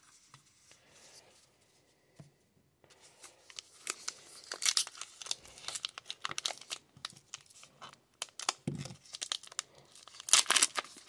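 A 2022 Topps Gypsy Queen baseball card pack wrapper being torn open by hand. It crinkles and tears in a run of sharp crackles starting about three seconds in, loudest near the end.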